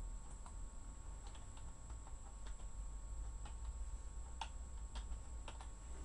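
Faint, irregular small clicks and ticks, the two clearest about four and a half and five and a half seconds in, over a steady low hum.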